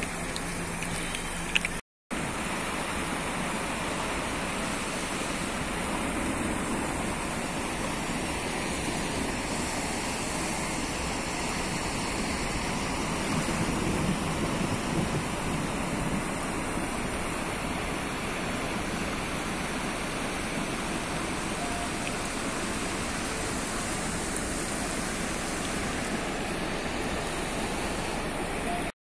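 Muddy floodwater rushing steadily down a flooded street in a storm, a continuous even rush. The sound drops out for a moment about two seconds in.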